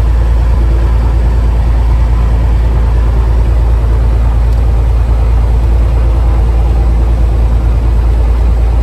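Light aircraft's carbureted piston engine and propeller running steadily, heard inside the cockpit as a loud, even low drone.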